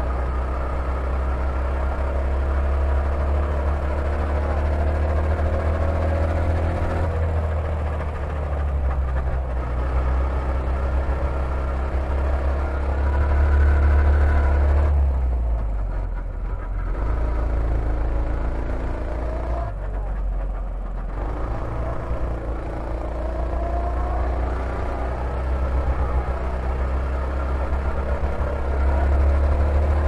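Rental go-kart's small engine running hard, heard from the driver's seat; its note climbs as the kart speeds up and drops away twice, about halfway through, as the throttle is lifted for tight corners.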